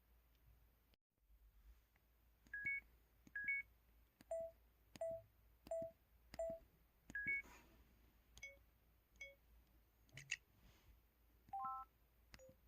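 MS500 mobile phone keypad button tones: about a dozen short electronic beeps, roughly one every 0.7 seconds. Some are quick two-note rising blips, others single tones.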